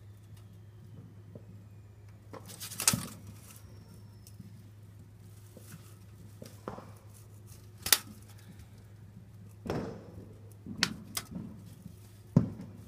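Fireworks going off: about half a dozen sharp bangs and pops spaced irregularly, the loudest about three and eight seconds in, over a steady low hum.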